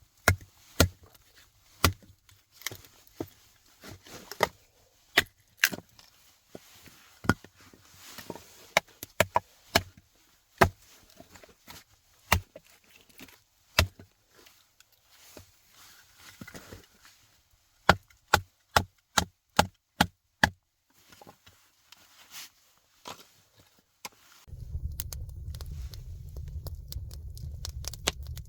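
Wood being chopped: a long series of sharp knocks at irregular intervals, with a quicker run of blows about two-thirds of the way through. Near the end a steady low rumble starts.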